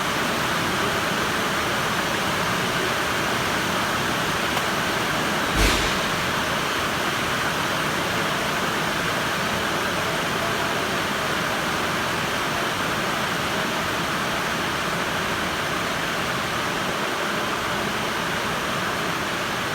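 Steady rain heard from inside a building: an even, unbroken hiss. A single sharp knock sounds about five and a half seconds in.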